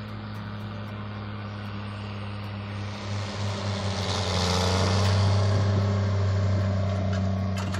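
Versatile 575 four-wheel-drive tractor's Cummins diesel engine running steadily under load while pulling a tillage implement, with a steady low hum. It grows louder as the tractor passes close, loudest about four to six seconds in, then eases a little.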